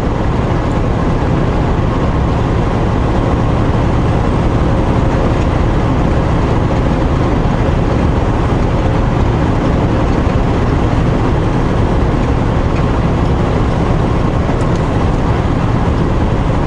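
Steady engine and road noise of a truck pulling a trailer, driving along with no change in speed, heard from inside the cab.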